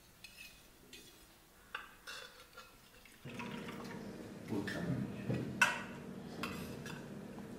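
Light clinks and scrapes of a spoon against stainless steel plates and bowls as food is served onto a steel thali. A low steady hum comes in about three seconds in.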